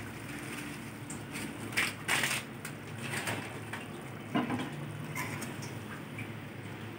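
Dried fenugreek leaves (kasuri methi) crackling as they are crushed between the fingers and sprinkled into a simmering curry, with louder crunches about two seconds in. A low steady simmer lies underneath.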